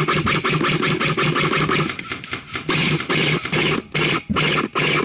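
Electric airsoft rifle firing on full auto: a fast, even rattle of shots over the whir of the gearbox motor. It fires one long burst, then shorter bursts with brief pauses from about two seconds in.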